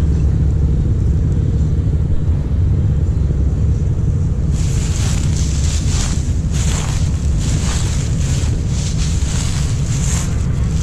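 Wind buffeting the microphone in a steady low rumble. From about halfway in, footsteps crunch through dry fallen leaves, about one and a half steps a second.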